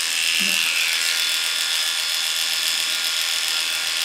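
Cordless dog grooming clippers running with a steady buzz and high whine as the blade clips through a poodle's curly coat on its face.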